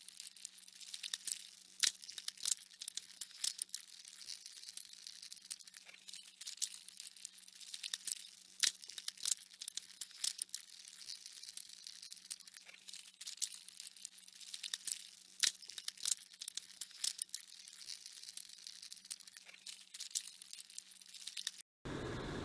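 Swallowtail caterpillar chewing a leaf: irregular crisp clicks and crackles, with a few louder snaps, over a faint steady low hum.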